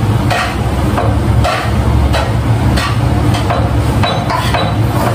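A metal utensil scraping and clinking against a pan as chopped vegetables are stirred and fried, in repeated short strokes, over a steady low hum.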